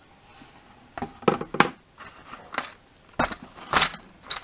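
A cardboard model kit box being opened and handled: the lid scraping and knocking against the box in a series of short rustles and knocks, starting about a second in.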